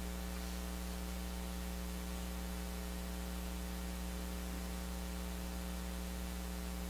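Steady electrical mains hum from the sound system, a low buzz with a row of higher overtones and a faint hiss behind it, unchanging throughout.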